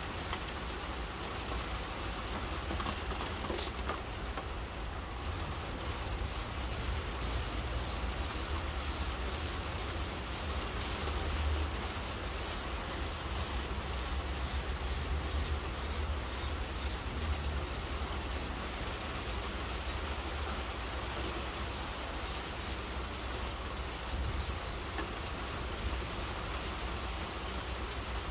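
Steady rain falling on surfaces, with quick short hisses from an MTN 94 aerosol spray-paint can, about two a second, for much of the middle, pausing briefly about two-thirds of the way through.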